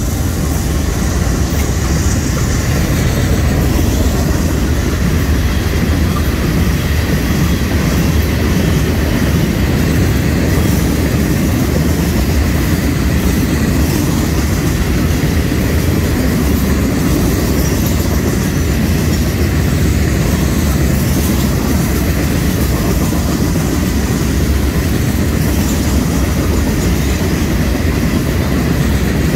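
Freight cars of a Florida East Coast Railway train rolling steadily past at speed, a loud, even rumble of wheels on the rails.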